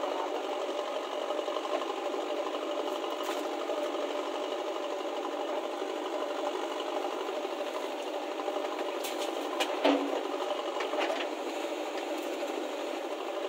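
Diesel engine of a JCB backhoe loader running steadily with a mechanical rattle while the machine digs and loads soil. A few sharp knocks come about ten seconds in.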